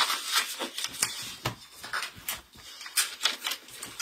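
Craft supplies and paper handled on a desktop: an irregular run of light taps, knocks and rustles.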